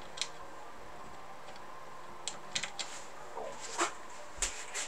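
Scattered light clicks and small metal taps as tools and typewriter parts are handled on a workbench, with a dull thud near the end.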